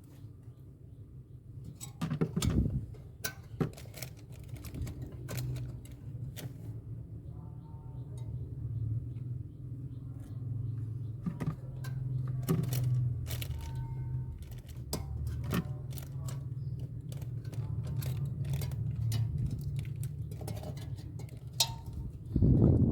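Scattered clicks, taps and knocks of hands and tools handling refrigerator parts, over a low steady hum, with louder knocks about two and a half seconds in and near the end.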